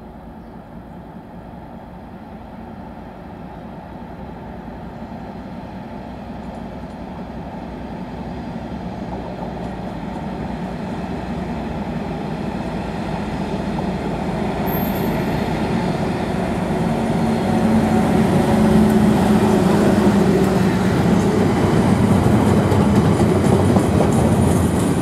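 Class 56 diesel-electric locomotive's Ruston Paxman V16 engine working as it hauls the water jetting train towards the listener, growing steadily louder and then running loud for the last several seconds as it draws level.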